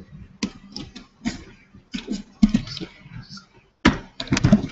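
A run of irregular sharp clicks and taps from working the computer, mixed with a man's brief mumbled speech.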